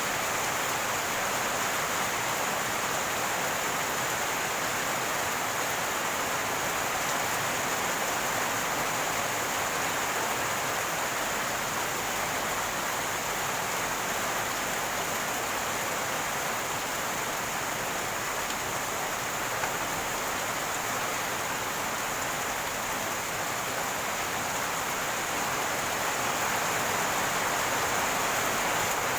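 Rainwater running and gurgling, a steady rushing water noise that holds even throughout.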